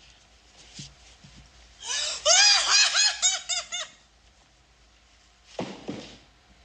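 A man laughing while holding it back: a run of quick, high-pitched, squeaky giggles for about two seconds, then a short breathy snort of laughter near the end.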